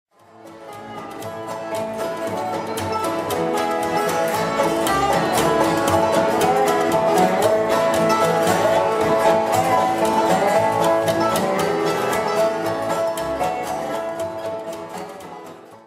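Bluegrass-style instrumental music with quickly picked banjo and guitar, fading in over the first couple of seconds and fading out at the end.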